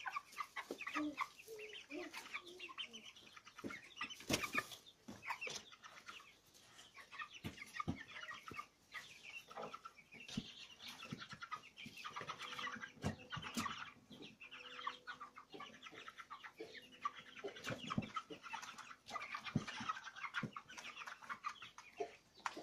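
Flock of young broiler chickens cheeping and clucking steadily while they feed, with scattered short sharp clicks of beaks pecking.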